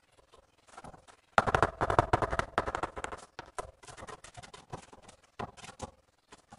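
Steel trowel scraping and clicking against the back of a ceramic tile as tile adhesive is spread on it, with a dense run of scrapes about a second and a half in, then scattered clicks.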